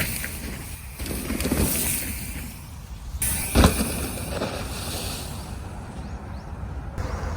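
Scott Ransom 900 enduro mountain bike being ridden over a trail: tyre rumble and rattling from the bike over rough ground, with wind on the microphone. A sharp knock a little past halfway is the loudest sound, and the noise changes abruptly about three seconds in and again near the end.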